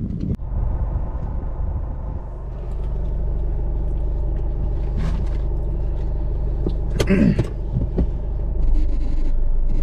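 Car engine and road noise heard from inside the cabin while driving: a steady low rumble with an engine hum.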